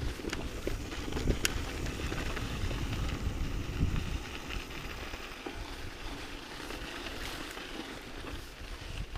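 Mountain bike rolling along a dirt trail: tyres on dirt and a few sharp clicks and rattles from the bike, under wind rumbling on the microphone that eases after about four seconds.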